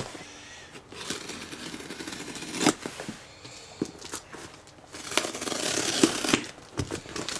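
A small folding knife slicing through packing tape on a cardboard box, with tape and plastic rustling and tearing as it is pulled at. Several sharp knocks on the cardboard, and a louder stretch of scraping and tearing about five seconds in.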